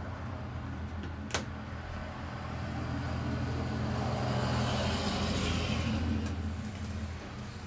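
Steady low mechanical hum that swells louder for a few seconds in the middle and then eases back, with one sharp click about a second and a half in.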